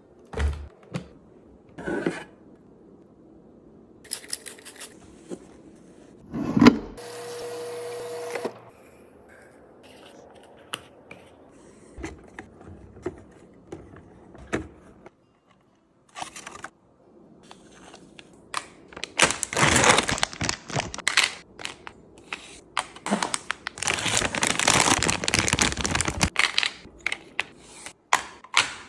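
Snacks and containers being handled and placed into a mini fridge: scattered clicks and knocks of plastic and packaging, with two longer stretches of dense rustling in the second half.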